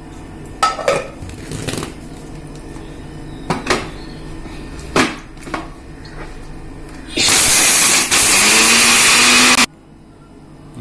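Knocks of a stainless steel mixer jar and its lid being fitted onto a Prestige mixer grinder, then the grinder's motor runs in two quick pulses for about two and a half seconds in all, dry-grinding curry leaves and whole spices, rising in pitch as it spins up and cutting off abruptly.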